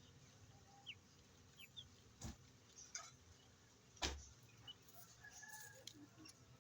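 Aseel chicks peeping faintly and sparsely, short high chirps now and then, with two sharp knocks about two and four seconds in, the second the loudest.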